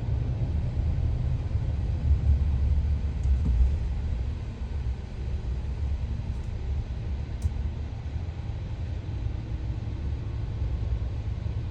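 Steady low rumble of a car driving along the road, heard from inside the moving vehicle.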